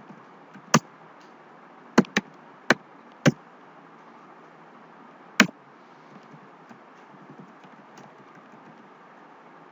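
Computer keyboard keys struck one at a time while typing code: six sharp, irregularly spaced clacks, then a few fainter taps, over a steady low hiss.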